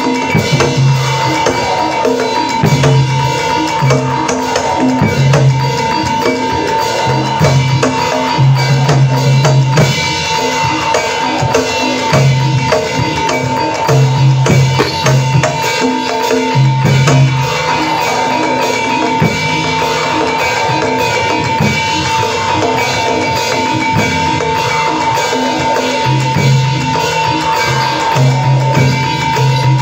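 Javanese gamelan-style barongan accompaniment: drums and struck percussion playing steadily, with a low note pulsing in short repeated runs and a steady high tone held throughout.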